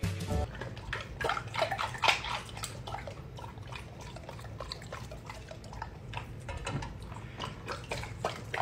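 A golden retriever lapping water from a stainless steel bowl: irregular splashes and slurps, with water dripping from its mouth back into the bowl.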